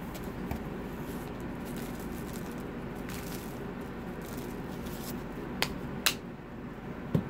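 Close-miked chewing, soft wet mouth sounds, then two sharp clicks from a plastic chili-lime seasoning bottle being handled and shaken, and a soft thump near the end.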